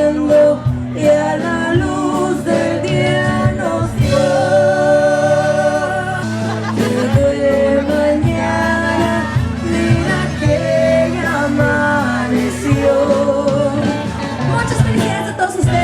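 A song: a singer's voice carrying a wavering melody over steady instrumental backing.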